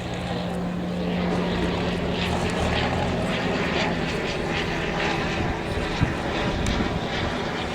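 Engine of a Royal Aircraft Factory SE5a biplane, a 200 hp Wolseley Viper V8, droning in flight with its propeller. The drone is a steady pitch that weakens about halfway through, and there is a short sharp knock about six seconds in.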